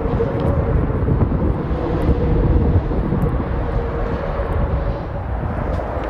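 Steady low rumble of distant engine noise with a faint droning tone.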